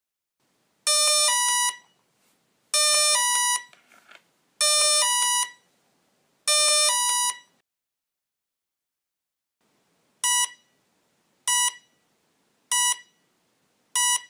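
Programming tones from a Hitec Energy Sport brushless electronic speed control (ESC), sounded through the motor, giving the signal for the brake on/off setting. There are four short runs of electronic beeps, each stepping up in pitch. After a pause come four short single beeps.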